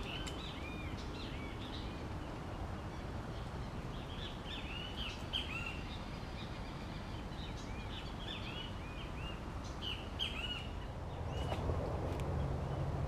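Birds chirping in short, quick, repeated calls that come in clusters, over a steady low background noise, with a few sharp clicks. Near the end a low steady hum comes in.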